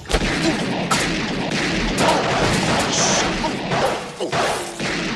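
A loud, dense stretch of crashing and banging with many sharp impacts close together.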